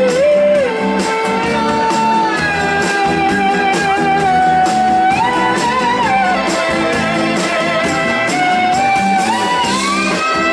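Live blues-rock band playing an instrumental passage between vocal lines. A lead line holds long notes that slide up and down in pitch over a steady beat.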